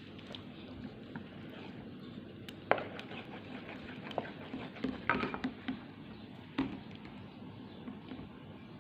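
Scattered light knocks and clicks of kitchen items being handled, with a quick cluster a little after halfway, over a steady low hum.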